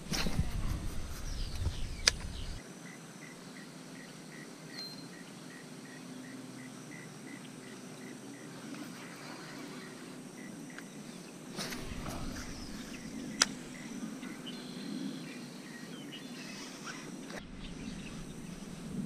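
Quiet outdoor ambience: a faint high chirp repeated evenly, about three times a second for several seconds, with a few sharp clicks.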